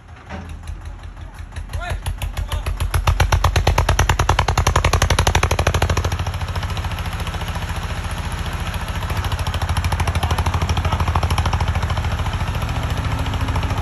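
Eicher tractor's diesel engine labouring under heavy load, its rhythmic chugging building over the first three seconds, easing a little about six seconds in, then swelling again. The tractor is straining to pull a soil-laden trolley that has sunk in and is stuck.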